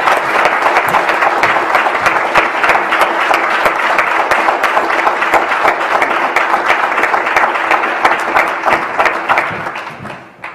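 Audience applauding, a dense patter of many hands clapping, which dies away about a second before the end.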